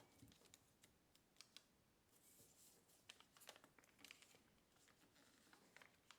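Faint, irregular crinkling and small clicks of a sheet of Kami origami paper being folded and creased by hand, with a short rustle about two and a half seconds in.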